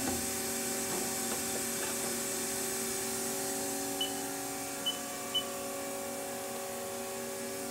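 Steady hum and hiss of a powered-on Haas ST-10 CNC turning center, made of several constant tones. Three short high beeps sound about four, five and five and a half seconds in.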